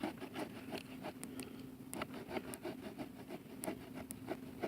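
Wood saw blade of a Victorinox Rangerwood 55 pocket knife sawing through wood in short rasping strokes, about three or four a second; the cut is nearly through.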